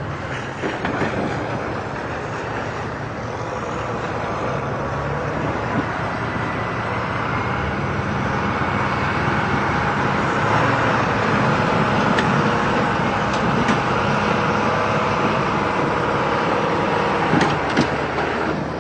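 Heavy snow-clearing machine's diesel engine running steadily under load as it pushes a pile of snow, building slightly in level partway through.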